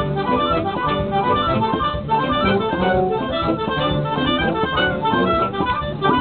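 Military concert band of brass and woodwinds (French horn, trumpets, saxophones, clarinets) playing together under a conductor, with many notes changing quickly.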